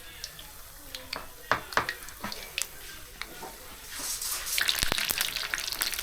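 Bhajia deep-frying in hot oil: scattered pops and clicks, then about four seconds in a dense crackling sizzle starts up.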